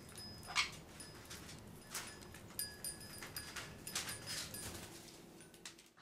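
Parrots making brief high chirps and clicks, many times over, the loudest about half a second in.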